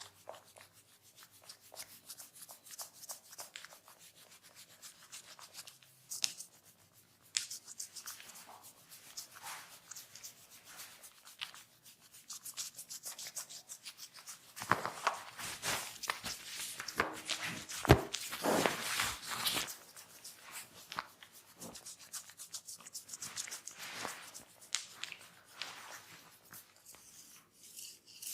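Hands rubbing and kneading skin and hair in a head and neck massage: many small scratchy strokes that grow louder and busier in the middle, with one sharp click about two-thirds of the way through.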